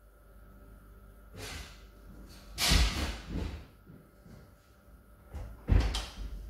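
Knocks and thumps of a folding stepladder being stowed in an under-stairs cupboard: a lighter knock, then two loud thumps about three seconds apart.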